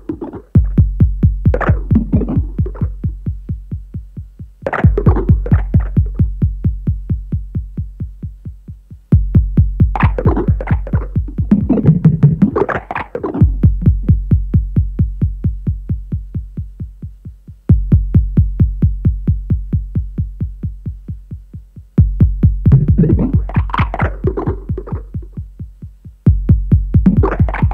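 Experimental electronic music: a rapid, even synthesized pulse over a low bass tone, restarting loud about every four seconds and fading each time, with swells of noisy synthesizer sound laid over it.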